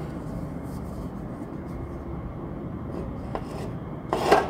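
Steady low background rumble, with a light tap a little over three seconds in and a short clatter of aluminium drink cans being handled and set down on a table near the end.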